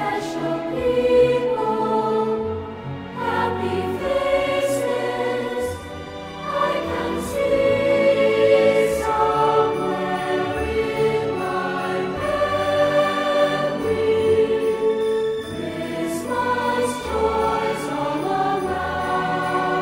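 Background choral music: a choir singing slow, long-held notes over a low bass line.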